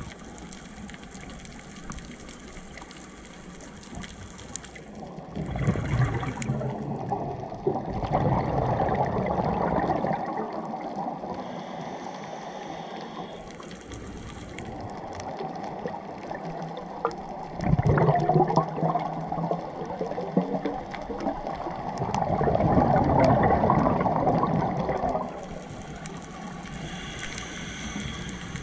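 Scuba regulator breathing heard underwater: exhaled air bubbling and gurgling in four swells of a few seconds each, with quieter stretches between.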